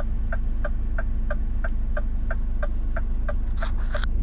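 A Scania S500's V8 diesel idling, heard from inside the cab, with an even ticking about three times a second over it. Two short hissy rustles come near the end.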